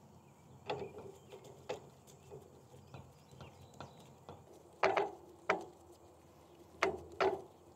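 Sharp metal clicks and clinks of a 10 mm T-bar and valve caps handled against a brass pressure washer pump manifold. The loudest come in pairs about five and seven seconds in, some leaving a short metallic ring.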